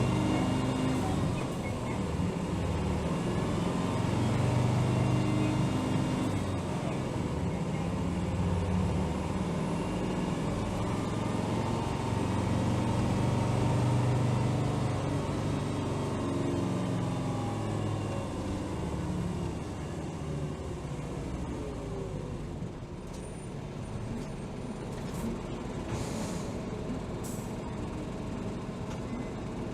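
Hino Rainbow HR city bus's diesel engine pulling and easing off through the gears, its pitch rising and falling, then settling quieter, with a few short air hisses near the end.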